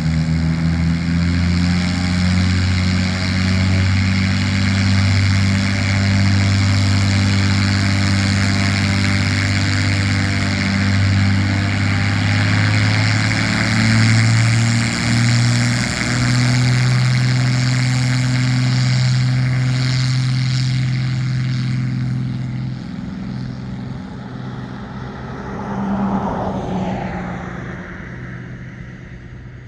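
Cessna 402B's twin turbocharged six-cylinder piston engines and propellers running loudly at close range. The engine note steps up about fifteen seconds in. After that the sound drops off, swells briefly once more, and fades as the aircraft moves away.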